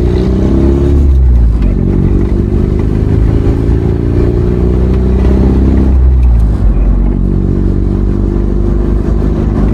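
A road vehicle's engine running under way, heard loud and low from inside the vehicle. Its pitch climbs, falls back twice (about a second in and again about six and a half seconds in), then climbs again, as when accelerating through gear changes.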